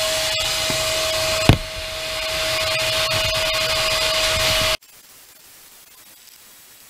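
Blast cabinet's suction vacuum running steadily with a constant whine, and a single sharp knock about a second and a half in. The sound cuts off abruptly about two-thirds of the way through, leaving only a faint hiss.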